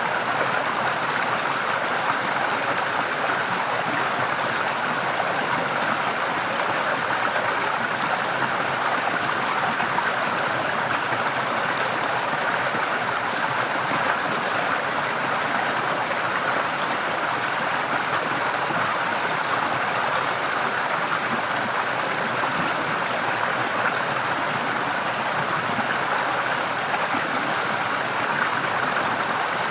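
Forest stream running: a steady, even rush of flowing water.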